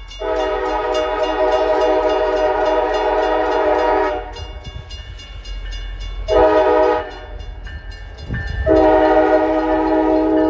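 Diesel locomotive chord horn sounding for a grade crossing: a long blast of about four seconds, a short blast, then another long blast, over the low rumble of the passing train.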